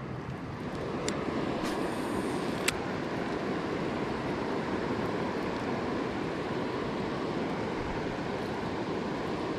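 Steady rush of water from river rapids. In the first few seconds come a few light clicks and a brief high whir from a baitcasting reel as the line is cast and reeled.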